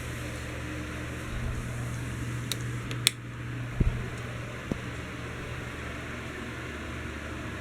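Heritage Empire Deluxe ceiling fan running: a steady motor hum under the even rush of air from its blades. A few short clicks come about three seconds in, and a couple of soft knocks follow.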